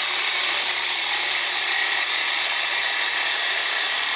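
Angle grinder cutting into the steel pipe of a racing expansion-chamber exhaust, running at a steady, even load with a loud grinding hiss.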